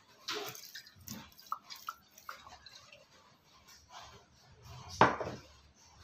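Liquid seasoning poured and dripping onto raw ground pork in a stainless-steel pot, with a few light handling knocks and one sharper knock about five seconds in.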